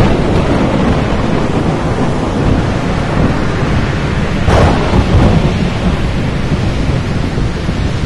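Loud thunderstorm: steady heavy rain and rumbling thunder, with one sharp thunderclap about halfway through.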